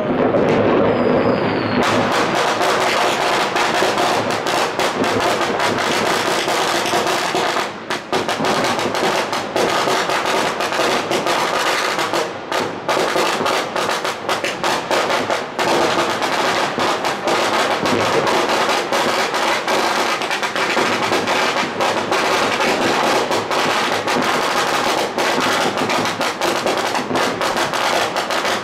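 Dense, continuous crackle and banging of many fireworks, rockets and firecrackers going off at once, the bangs overlapping without a break. The sound turns fuller and sharper after a cut about two seconds in.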